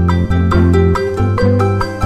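Background music: a bright, upbeat instrumental tune with plucked or mallet-struck notes over a steady bass.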